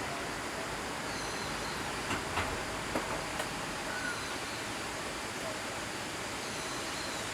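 Typhoon-strength wind blowing steadily through trees with an even rushing noise. About two to three and a half seconds in, four sharp clicks or knocks stand out, and a few faint high chirps come and go.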